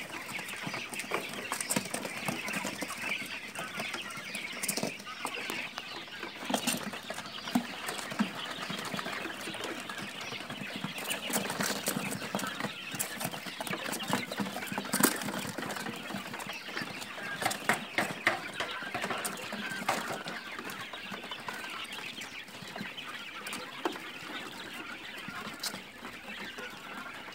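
A pen full of month-old quail chirping and calling without a break, with scattered short ticks and brief wing flutters as the birds move about.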